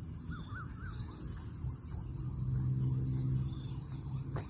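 Crickets and other insects calling steadily in a field: a continuous high whine with short rapid chirp runs over it. A bird calls a few times near the start, a low hum swells in the middle, and a single knock comes near the end.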